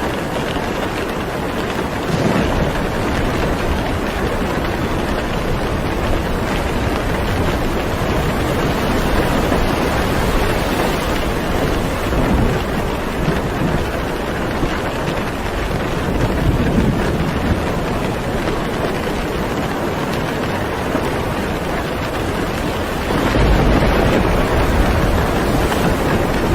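Heavy rain pouring steadily, a dense hiss with no let-up, with a deeper low rumble growing stronger about three quarters of the way through.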